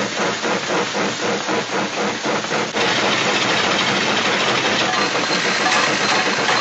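Engine-like mechanical sound effect: a rapid chugging of about five beats a second, which turns into a steady dense noise a little under halfway through.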